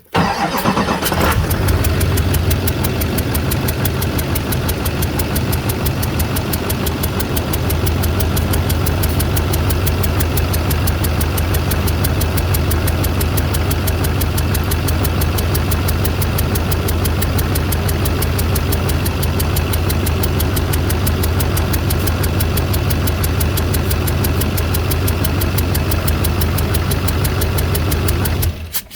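Chevy Duramax diesel V8 started and left idling, with a rapid, even tick and clatter from the engine bay; it is shut off suddenly near the end. The owner takes the exhaust-leak-like tick for a misfire from a leaking or stuck number 8 injector, possibly its crush washer or O-ring.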